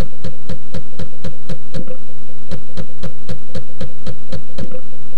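Apple II 5.25-inch floppy drive reading a disk during a copy: steady, even clicking about four times a second as the head steps from track to track, over the drive's spinning hum.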